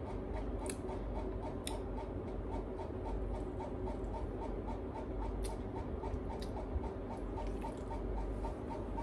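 Steady low hum with a soft, even ticking about three times a second, and a few faint sharp clicks.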